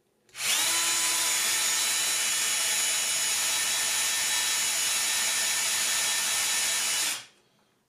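Cordless drill spinning up and running steadily as its bit bores a mast hole through a hard wooden board over a 2 mm pilot hole, stopping sharply near the end. The bit is somewhat dull: it "was once sharper".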